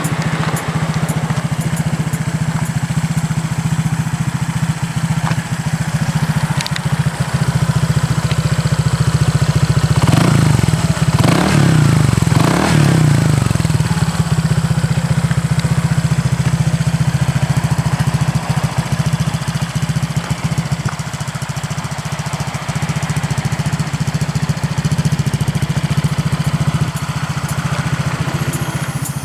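Honda ADV150 scooter's 149cc single-cylinder four-stroke engine idling through a Yoshimura GP Magnum aftermarket exhaust. The throttle is blipped about three times, rising and falling, some ten seconds in.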